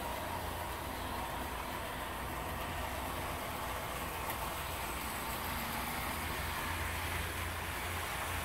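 HO-scale Athearn Amtrak diesel model locomotives running on the layout track: a steady whir of small DC motors and wheels on rail, over a constant low hum.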